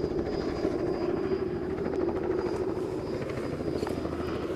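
Steady engine drone, with a low hum and no sudden changes.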